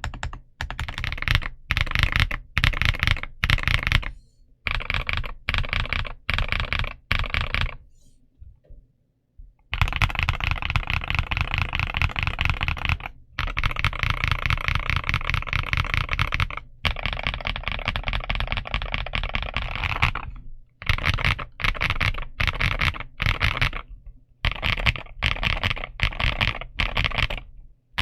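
Redragon K707 Pro mechanical keyboard, stock, being typed on: fast runs of key clicks in bursts of a few seconds. There is a short pause about eight seconds in, then a long unbroken run of typing.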